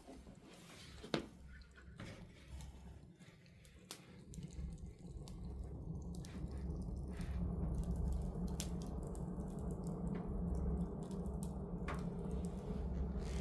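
Wood fire in a fireplace crackling with scattered sharp pops, over a low rumble of flames that builds through the first several seconds and then holds steady.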